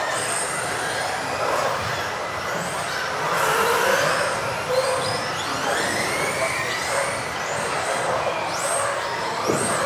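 Several electric off-road RC buggies with brushless motors racing. Their motors whine high, rising and falling over and over as they accelerate and brake, over a steady noise of the cars running on the track. A single sharp knock about five seconds in.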